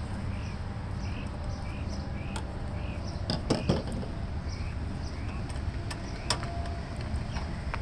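Sharp plastic clicks and knocks of a flat-blade screwdriver prying at a lawnmower engine's plastic air filter cover, a few scattered through and the loudest cluster a little over three seconds in. Behind them a steady low rumble and a short high chirp repeating about every two-thirds of a second.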